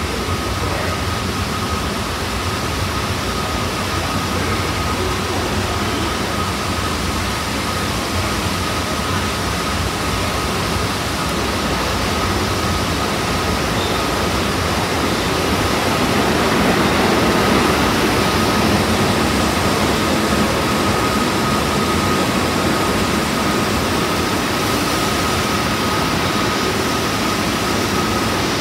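Subway train standing at an underground platform with its doors open: a steady roar of ventilation and equipment noise with a thin, steady high hum. The roar swells louder for a few seconds past the middle.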